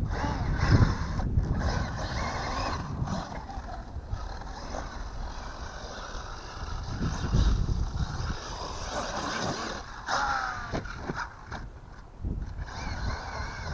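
Arrma Mojave 8S RC truck being driven, its Hobbywing 5687 brushless motor whining up and down with the throttle over tyre and drivetrain noise, with a sharp falling whine about ten seconds in.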